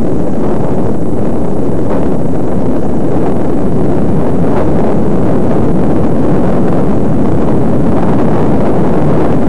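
Loud, steady wind buffeting on the microphone of a camera moving up the road, with a few faint knocks.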